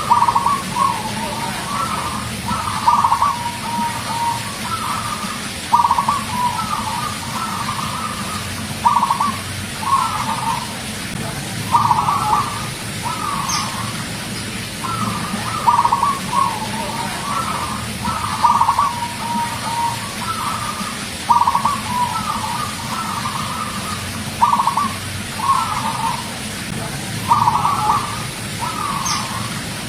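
Zebra dove (perkutut) singing: a phrase of short, trilled coos that repeats about every three seconds.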